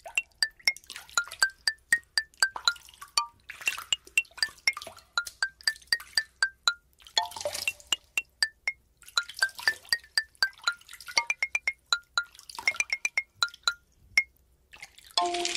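Small plastic building bricks clicking and clinking as hands rake through a loose pile and press pieces together: many sharp, irregular ticks, each with a brief high ping, broken by short rustling stretches.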